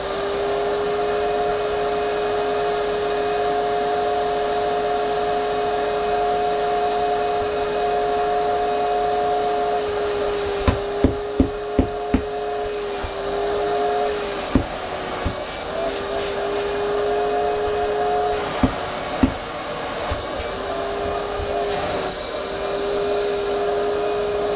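Vacuum cleaner running with a steady whine that wavers slightly in pitch. A quick run of about five sharp knocks comes roughly halfway through, and a few single knocks follow later.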